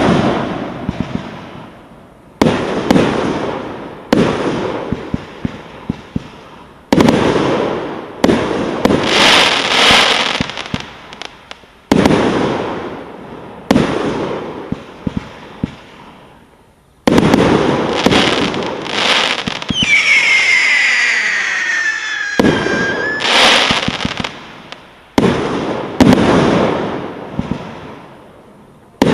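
Svea 'Pole Position' firework cake with 30 mm tubes firing shot after shot, one every one to three seconds: each a sharp bang that fades away over a second or two with scattered small pops. About two-thirds of the way through, a falling whistle sounds for a couple of seconds.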